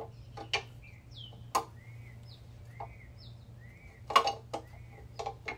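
Steel disc brake adapter bracket clinking and knocking against the rear axle housing flange as it is test-fitted by hand: a few short, sharp metal clicks, the loudest about four seconds in.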